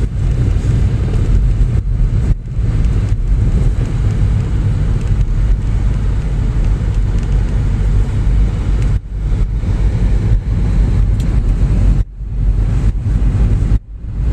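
Steady low rumble of road and engine noise heard from inside a moving car, dipping briefly a few times in the last few seconds.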